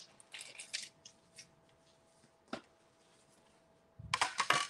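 Light rustles and scrapes of paper and plastic cutting plates being handled at a die-cutting machine, with a single sharp click about two and a half seconds in and a louder scraping rustle near the end.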